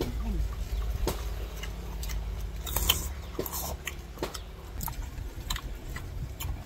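People chewing crisp raw green mango slices: irregular crunches and crackles as the firm fruit is bitten and chewed, with a louder crunch about three seconds in.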